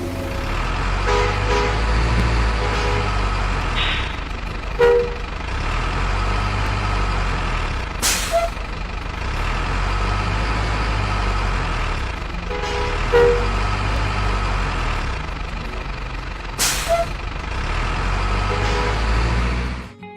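Heavy truck engine sound: a steady low rumble with two short, sharp hisses about eight and a half seconds apart, cutting off suddenly at the end.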